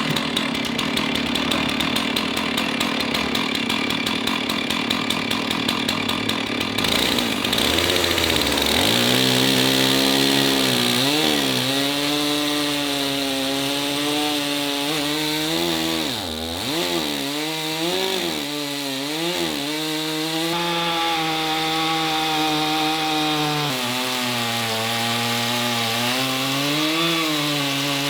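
Chainsaw running, then from about seven seconds in cutting into a black walnut log, its engine note dipping and recovering again and again as it comes under load in the wood.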